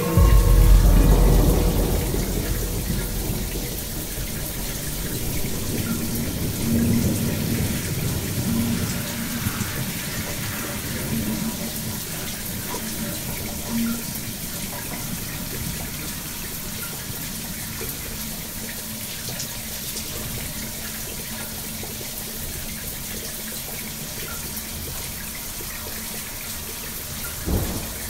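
Shower running: a steady rush of spraying water, heaviest over the first couple of seconds and then settling. A faint steady low hum sits underneath, and there is a short thump near the end.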